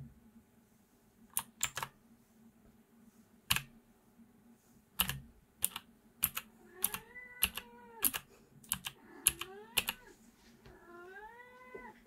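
Clicky mechanical switches on a Thunderobot KC3068 keyboard pressed one key at a time, about a dozen sharp clicks at an irregular pace. Over the later clicks come three drawn-out meows that rise and then hold, like a cat's.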